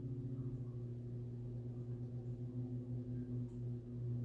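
A low, steady droning tone whose loudness wavers in a slow, even pulse, of the kind made by a gong or singing-bowl drone.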